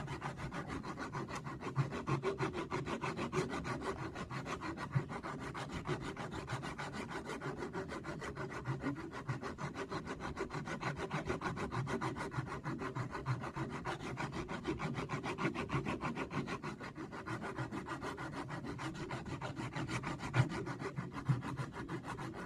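Sandpaper rubbed back and forth over a wooden block in quick, even strokes, a steady rhythmic scraping that keeps the same pace throughout.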